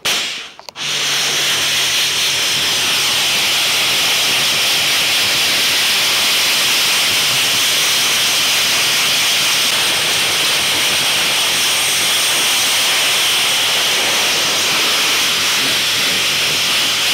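Hot-water pressure washer lance spraying a wire deep-fryer basket to strip baked-on carbonised grease. A brief burst is followed, about a second in, by a steady loud hiss of the jet.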